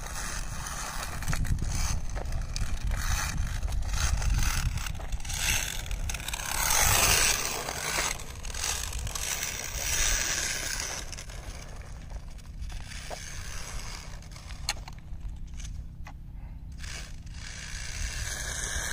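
Small electric RC car running across loose gravel and dirt, its tyres crunching and scraping on the stones, over a steady low rumble. The crunching swells about seven seconds in and again around ten seconds, then thins out as the car gets farther away.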